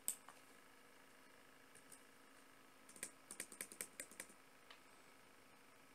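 Computer keyboard keystrokes. A single click at the start, then a quick run of about ten key presses about three seconds in.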